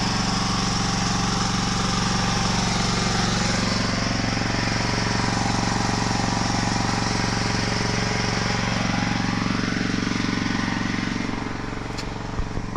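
Small engine running steadily, its note shifting slightly about four seconds in and dropping a little near the end.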